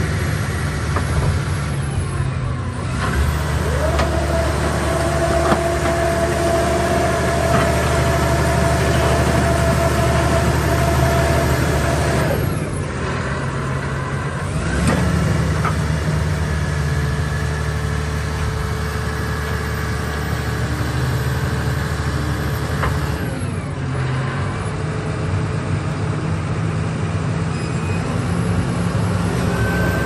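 Vögele Super 1800-3i asphalt paver's diesel engine running steadily. A steady hydraulic whine sets in a few seconds in and stops near the middle as the hopper wings are worked. The engine note shifts a couple of times.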